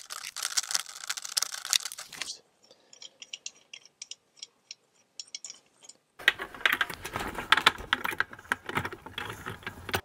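Hard plastic parts clicking and rattling as a dishwasher heating element's plastic mounting nuts are turned loose and the element and its fittings are handled. There is dense rattling for about two seconds, a few scattered ticks, then dense rattling again from about six seconds in.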